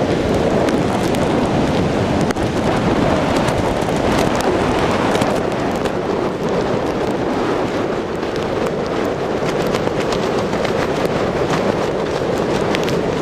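Strong storm wind buffeting the microphone in a loud, steady rush with constant crackling, over the roar of heavy tropical-storm surf breaking on the beach.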